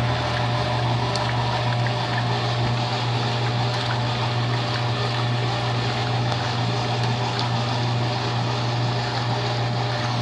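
Electrolux LE08 washing machine running: a steady motor hum under a wash of moving water.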